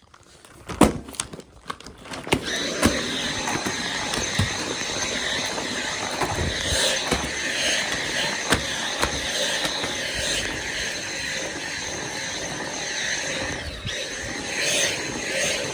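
A few clicks and knocks of handling, then a Dyson V7 cordless stick vacuum switches on about two seconds in and runs steadily with a high motor whine, with scattered knocks and rattles as it picks up. Near the end the whine drops out for a moment and comes back.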